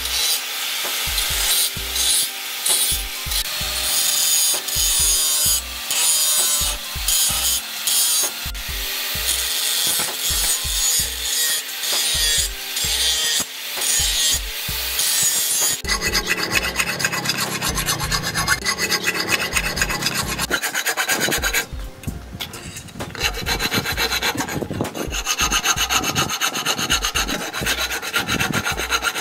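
Handheld angle grinder cutting through the steel of a tractor disc-plough blade, a harsh, continuous grinding rasp. The sound changes abruptly about halfway through and dips briefly a few seconds later before the grinding resumes.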